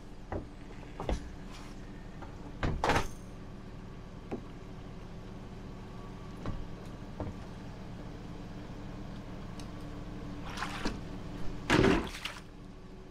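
Small boat with a steady low hum, broken by knocks of gear about three seconds in and by water splashing near the end as a squid is scooped up in a landing net.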